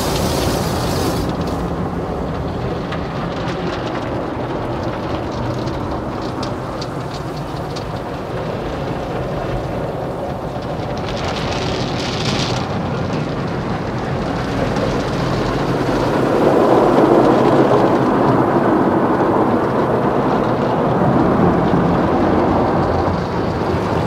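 Automatic tunnel car wash heard from inside the car's cabin: water and foam spraying onto the car and cloth brushes scrubbing over it, above a steady rumble of machinery. There is a brief hiss of spray near the middle, and the scrubbing grows louder about two-thirds of the way through.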